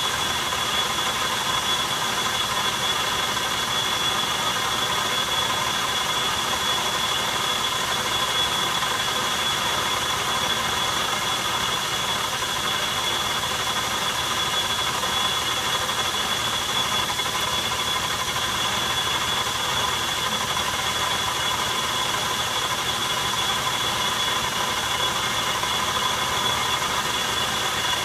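Metal lathe running steadily at speed, turning a steel workpiece, with a steady high whine from the machine and the cut. The tool is taking a turning pass to reduce the diameter.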